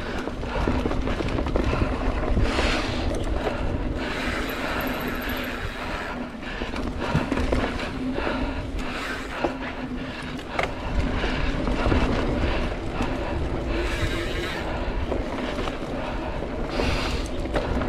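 Mountain bike being ridden along a trail: a continuous rumble and rattle from the bike over the ground, with wind on the microphone and many small knocks throughout.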